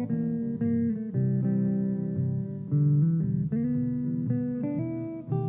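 Epiphone Swingster hollow-body electric guitar played through a Peavey bass amp: picked blues lead lines, note after note, over a looped backing part from a Boss RC-2 loop pedal.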